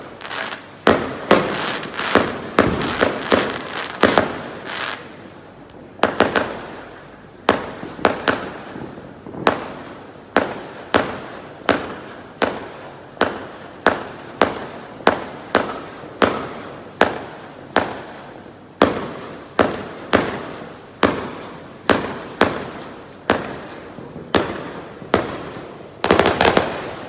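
Fireworks going off in a long run of sharp bangs, about one or two a second, each with a short echoing tail. There is a brief pause about five seconds in, and a dense flurry of bangs near the end.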